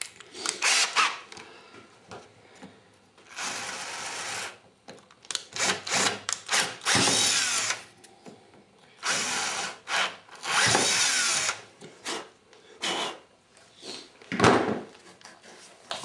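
Power drill running in several short bursts, each about a second long, as it drills pilot holes through a spearfishing fin's foot pocket and blade, with clicks and handling noise between the bursts.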